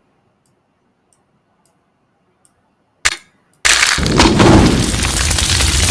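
Near silence for about three seconds, then an edited sound-effect track plays: a short sharp crack, and half a second later a loud, sustained rushing noise with a deep rumble.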